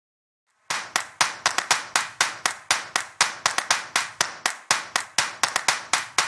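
Rhythmic hand claps opening an instrumental pop song, starting under a second in and keeping a quick, uneven beat of about five claps a second.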